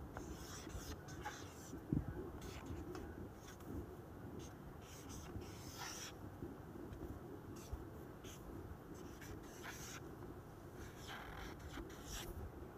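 Marker pen writing on a white board: faint scratchy squeaks of short strokes, coming on and off, over a low room hum.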